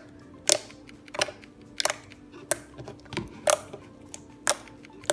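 White slime being pressed and squished by hand, making about seven sharp, wet clicks and pops, roughly one every 0.7 seconds.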